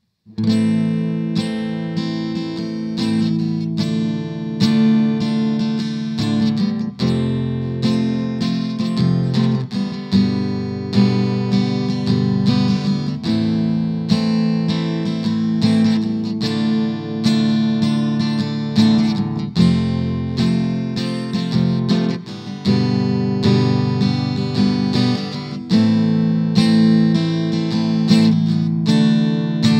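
Seagull Entourage Rustic cedar-top acoustic-electric guitar strummed in a steady rhythm of chords, its pickup signal heard through a Roland AC60 acoustic amplifier's speaker.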